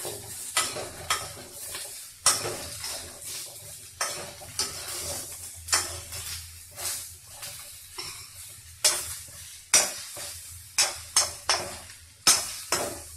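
Metal spatula scraping and knocking against a kadhai (Indian wok) as spiced mixed vegetables are stirred, with oil sizzling underneath. The strokes come irregularly, one or two a second.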